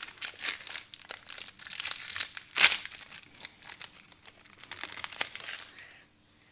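Foil wrapper of a Pokémon booster pack crinkling and crumpling in the hands, with one loud crunch about two and a half seconds in; it stops about six seconds in.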